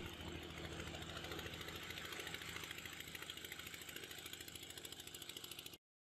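Boat engine running steadily with a fast, even beat, fading slightly, then cutting off suddenly near the end.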